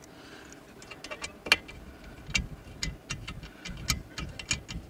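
Irregular metallic clicks and clinks of a hand tool working the bolt on a roof tent's gas-strut mount, with one sharper knock about one and a half seconds in.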